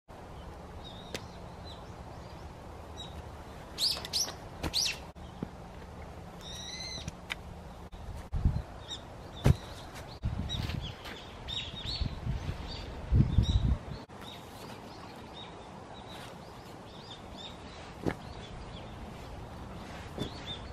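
Wild birds chirping, short high calls scattered throughout with a few louder calls in the first third. In the middle come several low thuds and rustles of footsteps and gear bags being handled.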